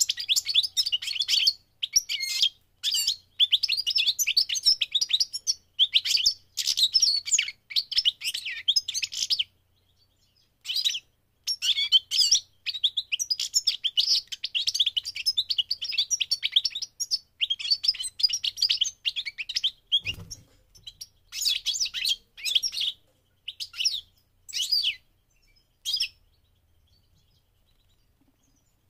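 European goldfinch singing: fast, twittering song phrases broken by short pauses, falling silent a few seconds before the end. A brief low thump about twenty seconds in.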